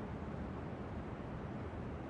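New York subway station ambience: a steady low rumble and hiss, with no distinct events standing out.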